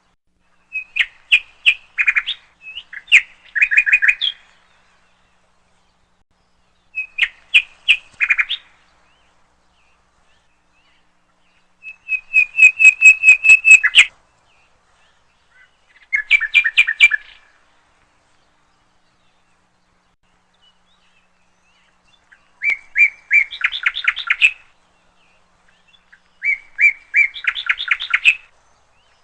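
Woodpecker calling: short rattling series of rapid, sharp notes, repeated in about seven bursts a few seconds apart.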